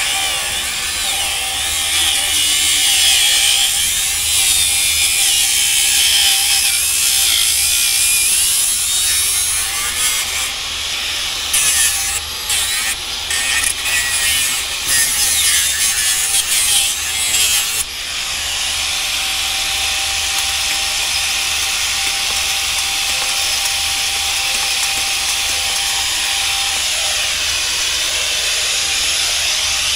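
Corded angle grinder running against steel: a loud, steady hiss over a thin motor whine. For several seconds around the middle it cuts in and out in short stop-start touches, then runs steadily again.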